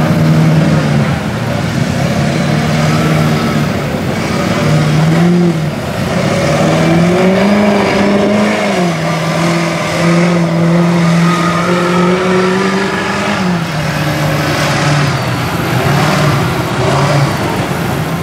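Mud truck's engine on giant tractor-tread tires revving as it churns through a mud bog, its pitch climbing and falling several times and held high for stretches.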